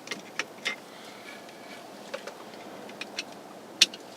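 Light clicks and taps of small parts and tools being handled during hand work on a steering column, scattered and irregular, the sharpest one near the end.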